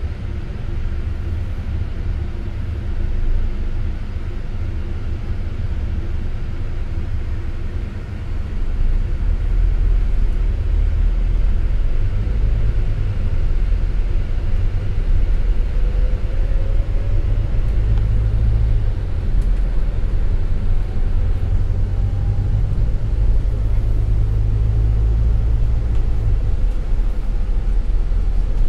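MCV-bodied double-decker bus heard from the upper deck while under way: steady engine and road rumble that grows louder about a third of the way through as the bus picks up speed.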